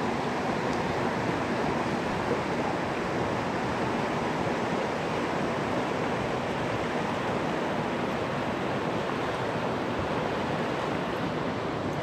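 Steady rushing of a fast, rocky river riffle, water pouring over stones with no breaks or distinct splashes.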